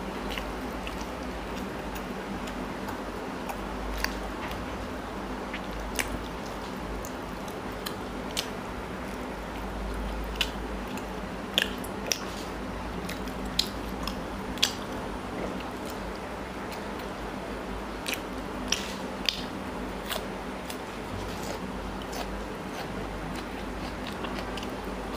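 Close-miked chewing and mouth sounds of a man eating paratha soaked in chicken curry, with scattered sharp clicks at irregular intervals over a steady low hum.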